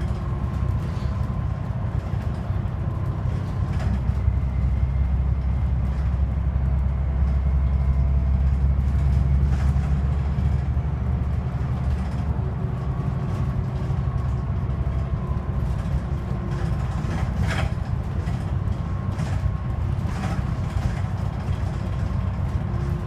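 Volvo Plaxton President double-decker bus running along, heard from inside the passenger saloon: a steady low engine and road drone that swells for a few seconds and then eases, with a faint whine and occasional light rattles from the body.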